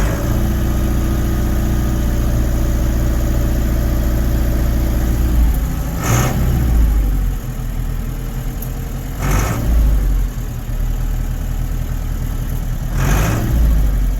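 Case 995XL tractor's turbo diesel engine running steadily as the front loader is worked from its joystick. The engine note drops about five seconds in, and three short loud bursts of noise come at about six, nine and thirteen seconds in.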